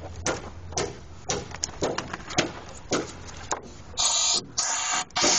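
Scattered light clicks and knocks, then about four seconds in a loud hissing rush that cuts in and out in short blasts.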